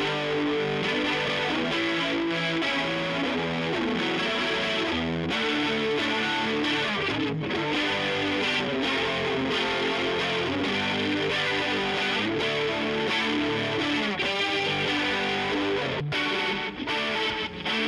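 Chinese Rickenbacker-copy electric guitar with toaster pickups played through a 1978 Marshall 4140 amp with original McKenzie speakers, strumming and picking a run of changing chords and notes, with a few brief breaks between chords near the end.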